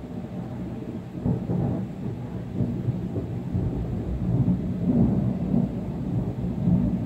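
Rolling thunder: a long low rumble that swells about a second in and rolls on in several surges.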